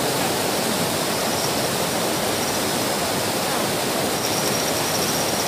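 Steady rushing noise, with a faint thin high tone joining it about four seconds in.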